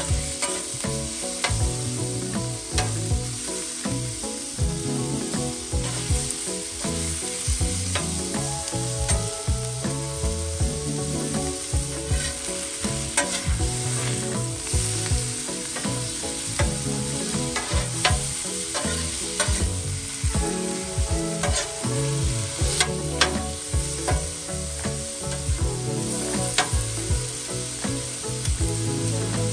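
Thinly sliced flank steak sizzling steadily on a hot Blackstone flat-top griddle. A metal spatula scrapes and clicks against the steel cooking surface again and again as the meat is stirred and turned.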